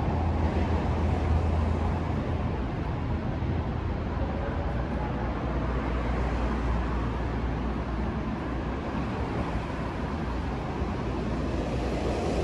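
MARTA rapid-transit train running along the track past the platform: a steady rumble with a low hum, with some wind noise on the microphone.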